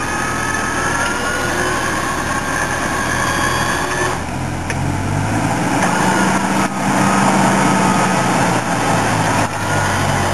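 4x4's engine running in gear under load while a winch hauls the beached vehicle up a steep slope, the engine note shifting in pitch a few times, with a thin steady whine above it.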